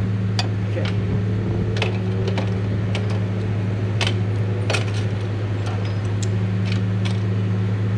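A steady low mechanical hum, with a dozen or so light, sharp metallic clinks scattered irregularly over it.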